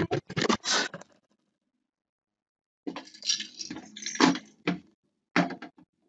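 Handling noise close to the microphone: sharp clicks and knocks, then scraping and rattling as a hand covers the camera and small plastic toy animals are moved around on a whiteboard ledge. The sound stops for about two seconds after the first clicks, and two short knocks come near the end.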